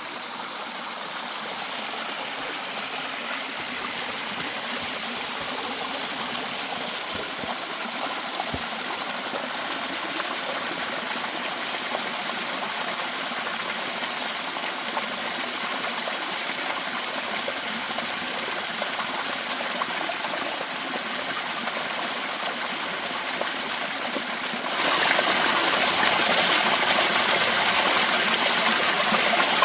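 Mountain valley stream flowing with a steady rush of water; about 25 seconds in it suddenly becomes louder and brighter.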